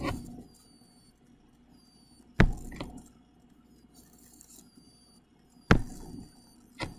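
Computer mouse clicks: a pair of sharp clicks about two and a half seconds in, then two more single clicks near the end, over quiet room tone.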